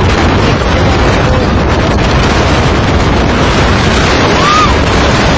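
Loud, steady roar of wind and rough water buffeting the microphone, with no clear strokes or rhythm.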